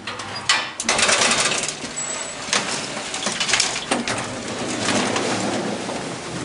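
Metal scissor-style collapsible gate of an old manually operated Otis traction elevator being pushed open by hand: a loud, uneven rattling clatter of the folding lattice with many clicks and knocks. Near the end the sliding hoistway door is pulled open by hand.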